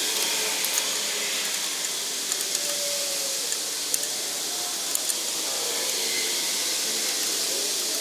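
A steady hiss with a few faint, short metallic clicks scattered through it, as the new wheel hub's mounting bolts are started by hand.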